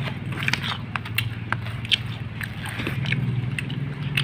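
Thin makeshift wooden chopsticks clicking and scraping against plastic bowls in light, irregular taps, with chewing between them.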